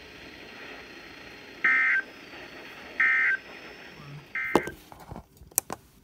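NOAA weather radio receiver sounding the three short end-of-message bursts of the EAS/SAME digital code, harsh buzzing data tones about a second and a half apart, marking the end of the severe thunderstorm warning broadcast. Near the end, several sharp knocks and clicks from the radio being handled.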